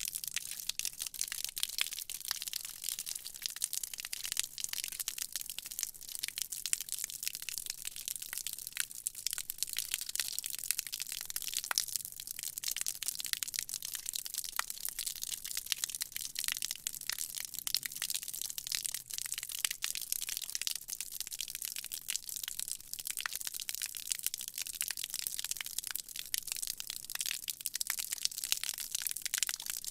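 A stream of water from a shower falling onto a hard floor: a steady, mostly high-pitched splattering hiss made of many small crackling splashes.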